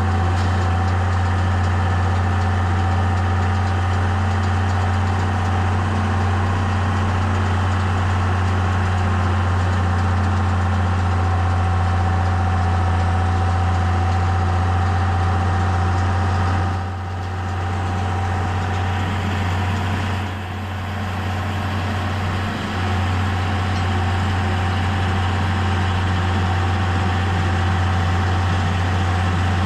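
Tractor engine running steadily under load, a deep constant drone with a steady whine over it; the sound dips briefly twice a little past the middle.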